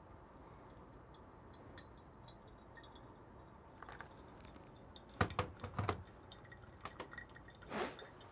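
Kettle pouring a thin stream of water onto coffee grounds in a paper-filter pour-over dripper, faint, the pour stopping within the first few seconds. After it come a few short clicks and knocks of handling, the loudest about five to six seconds in.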